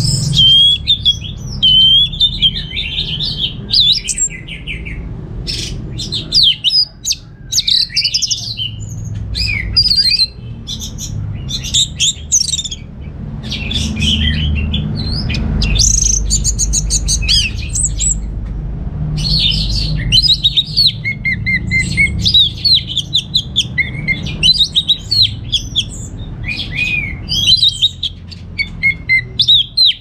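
Orange-headed thrush singing: a continuous run of quick, varied phrases of whistles and chatter, many sliding up and down in pitch, separated by brief pauses.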